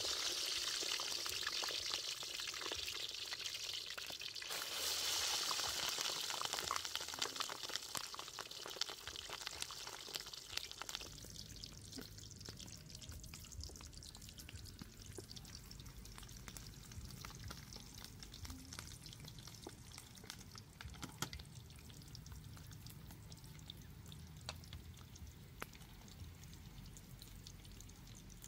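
Food sizzling in hot oil in a pan: a loud, dense sizzle for roughly the first ten seconds, then settling to a quieter sizzle with scattered small pops.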